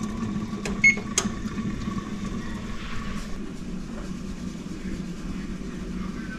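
Electric oven's keypad beeps once, a short high beep about a second in as the bake setting is entered, with a couple of button clicks around it. A steady low hum runs underneath.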